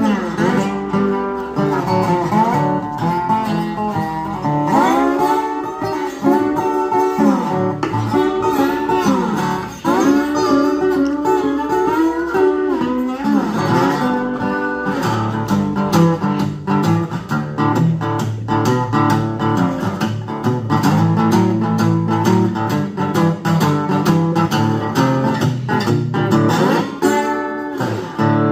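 Epiphone Dobro Hound Dog resonator guitar played blues-style, with notes gliding in pitch through the first half, then a steadier picked pattern over repeated bass notes.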